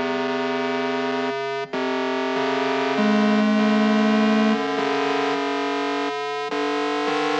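Instrumental music: sustained synthesizer chords that change every second or so, with no vocals. There is a brief drop-out about a second and a half in.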